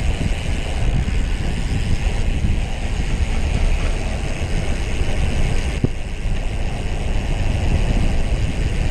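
Wind buffeting the microphone of a camera riding on a moving road bicycle: a steady, fluttering low rumble, with one sharp click a little past halfway.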